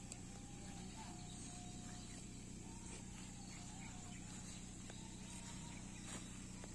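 Faint evening pasture ambience: a steady high insect drone, likely crickets, over a low steady hum, with a few faint drawn-out tones and occasional soft clicks.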